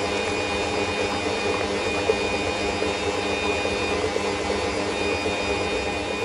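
Bosch stand mixer's motor running steadily at speed, its whisk beating eggs and sugar in a stainless steel bowl, a constant whirring hum.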